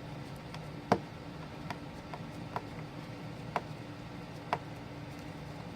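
Sparse small metallic clicks and taps, roughly one a second with the loudest about a second in: a precision screwdriver working a tiny corner screw into an iPhone 4S's frame. A steady low hum runs underneath.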